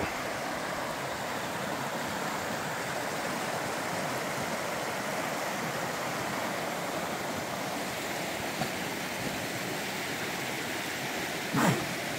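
A small rocky creek flowing steadily over stones. There is a brief thump near the end.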